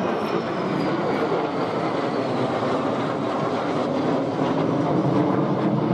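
Jet engines of a Boeing 737 airliner and two F-16 fighters flying over in close formation: a steady loud roar with a high whine that slowly falls in pitch as they pass.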